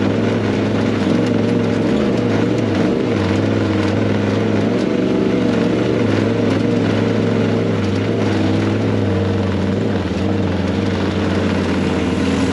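Side-by-side UTV engine running at a steady speed, its pitch wavering briefly a couple of times.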